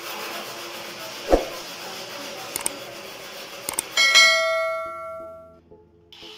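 Subscribe-button animation sound effect: two quick mouse clicks, then a bell ding that rings and fades over about a second and a half. Under it is a steady hiss, and there is a thump about a second in.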